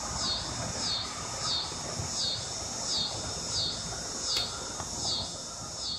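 Insects chirping in a steady rhythm, a high-pitched pulse about three times every two seconds. About four seconds in comes a single sharp snap of a recurve bow's string as an arrow is shot.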